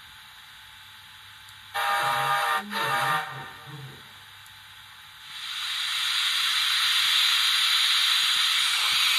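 Loksound sound decoder in a model 0-4-0 Camelback steam locomotive playing a steam whistle: two short toots nearly two seconds in. About five seconds in, a steady steam hiss rises and holds.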